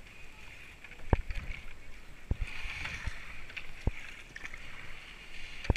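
Kayak paddling through foamy river water: four sharp thumps, roughly one every second and a half, as the paddle strokes, over a steady hiss of water and foam.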